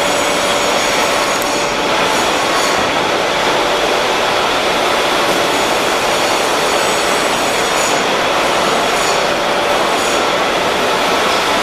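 Steady, loud machine-shop din: an even hiss with a few faint steady hums, no rhythm and no sudden knocks.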